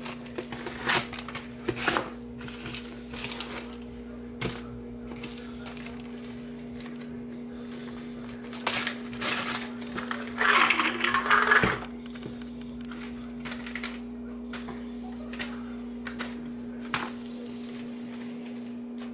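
Plastic supplement bottles and clear plastic baggies handled on a kitchen countertop: scattered clicks, taps and plastic rustling, with a longer rustle about ten seconds in, over a steady low hum.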